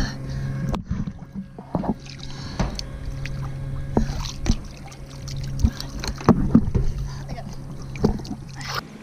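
Lake water sloshing and splashing around a hand-held camera at the surface as a woman swims, with frequent short knocks of water against the camera, over a steady low hum.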